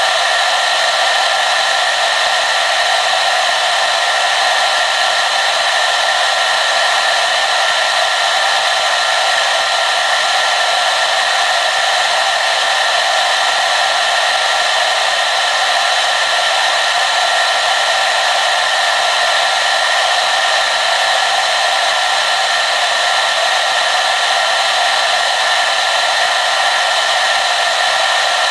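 Hair dryer running continuously at a steady speed: an even, unchanging rush of air with a faint steady whine.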